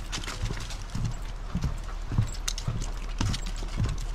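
Walking footsteps, dull thuds at a steady pace of about two a second, with light clicks and scuffs over them.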